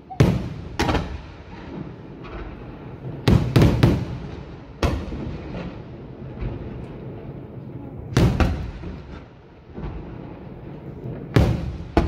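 Aerial firework shells (Maltese murtali) bursting overhead: about nine sharp bangs at uneven intervals, some coming in quick pairs and triples, each trailing off over a low background rumble.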